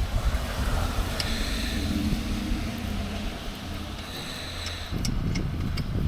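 Low, steady motor-vehicle rumble, with a faint high whine that comes and goes twice.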